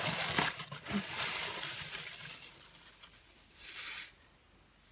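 Tissue paper rustling and crinkling as it is pulled out of a cardboard box, with a few light clicks, fading after about two seconds. A second, shorter rustle comes near the end.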